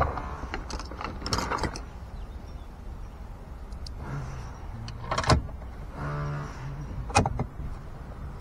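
A small electric motor whirs in two short runs, about four and about six seconds in, between sharp clicks and knocks.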